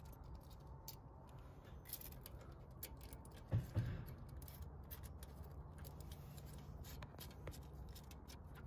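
Faint small metallic clicks and scrapes as a brass ground-rod clamp and its screw are handled and fitted onto a copper grounding rod. A steady low hum runs underneath, and there is one brief, louder low sound about three and a half seconds in.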